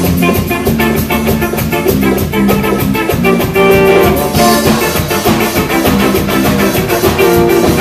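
Live band playing the instrumental opening of a song: electric guitars and a drum kit, the sound filling out about four and a half seconds in.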